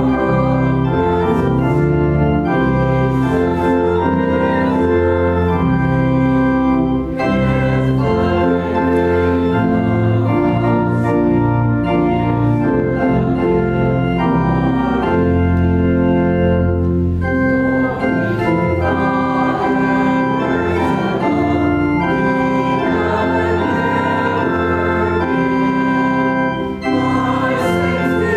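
Organ music: an organ playing sustained chords that change every second or so.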